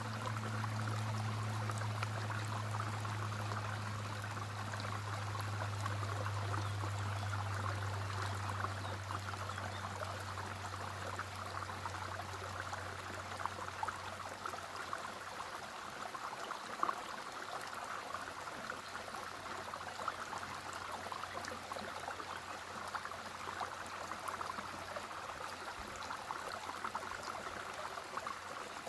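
Bayehon waterfall: water falling and splashing in a steady rush, loudest in the middle range. A low hum runs underneath and fades out about halfway through.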